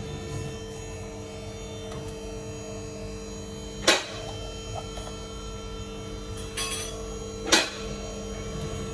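A steady electrical hum, with two sharp clicks or knocks about three and a half seconds apart and a fainter one between them.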